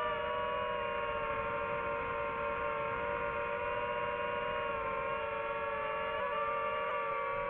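DJI FPV drone's motors and propellers whining at a nearly steady pitch, with slight wobbles in pitch about six and seven seconds in.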